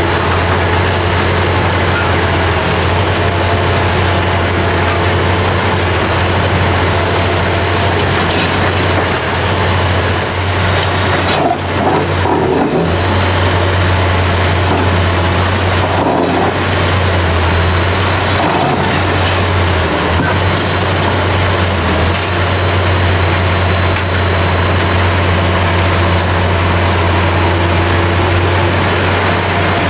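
Liebherr R 960 crawler excavator's diesel engine running steadily under load while its hydraulics dig out and lift a broken concrete block. Some irregular scraping and knocking of the bucket on concrete and soil comes near the middle.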